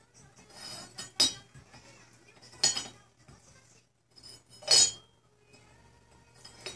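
Porcelain teapot lid clinking against the pot as a cat nudges it with her mouth: three sharp clinks a second or two apart, the last the loudest, with faint scuffling between.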